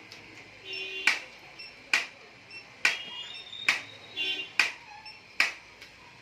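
Chiropractic impulse adjusting gun firing six sharp clicks, a little under a second apart.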